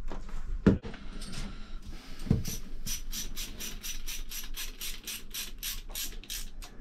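Hand pipe cutter being squeezed through plastic pipe: a steady run of crisp clicks, about five a second, starting about two and a half seconds in. Two dull knocks come before it.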